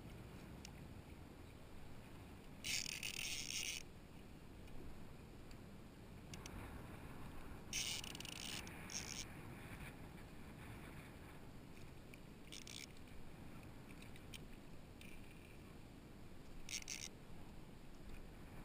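Baitcasting fishing reel whirring in four short bursts, the longest about a second, while a hooked stingray is fought on a bent rod, over a low steady rumble of water and wind against the camera.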